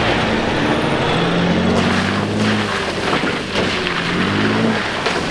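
Pickup truck engine running and revving through a muddy dirt track; its pitch rises and falls a few times as the throttle is worked, over a steady rushing noise.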